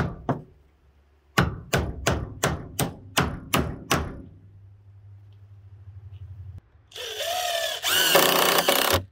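Claw hammer driving nails into salvaged pallet boards: a run of about eight sharp blows, roughly three a second. Near the end a cordless drill whines for about two seconds, driving a screw into a pallet-wood stringer.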